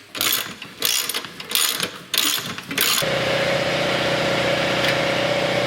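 A few short rasping strokes, then about three seconds in a power ratchet starts running steadily, driving a control arm mounting bolt in.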